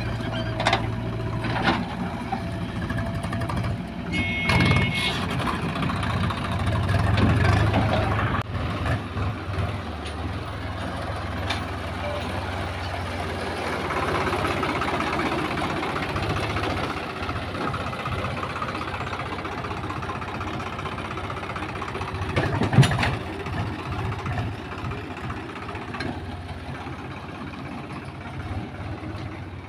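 Diesel engines of a JCB 3DX backhoe loader and a Swaraj 735 FE tractor running steadily, with knocks of soil being dumped into the trailer in the first few seconds. There is a brief high beep about four seconds in and a single loud knock later on.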